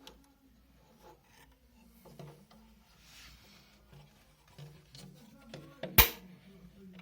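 Faint scattered clicks and rubbing, with one sharp, loud knock about six seconds in.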